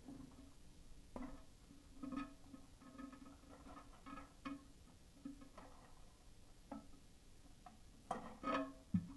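Faint, scattered light clicks and clinks of a toilet flapper's metal lift chain and chain clip being handled and adjusted, with a louder cluster of clicks near the end.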